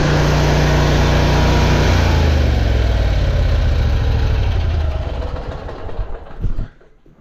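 Truck-mounted high-pressure drain jetter's engine running, then slowing with a falling pitch from about two seconds in and dying away to a stop near the end: the engine being shut down.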